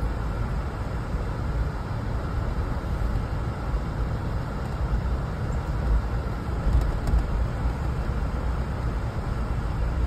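Steady low rumble of a car's engine and tyres on pavement, heard inside the cabin while driving slowly.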